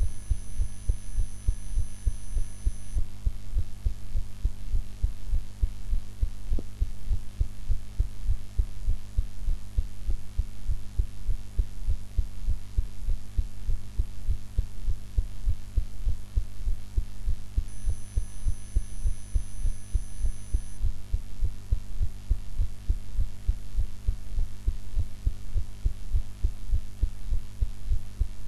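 A woman's heartbeat, recorded close up: a steady, even run of low thumps over a constant low hum.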